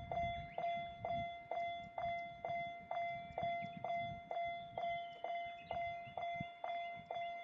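Japanese railroad crossing alarm ringing its steady 'kan-kan', a bright bell tone struck a little over twice a second. The rumble of a passing train fades away in the first second while the alarm keeps going.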